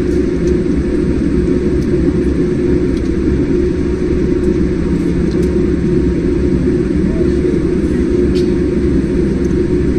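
Jet airliner's engines and cabin noise heard from inside the cabin while taxiing: a steady low rumble with no change in pitch or level.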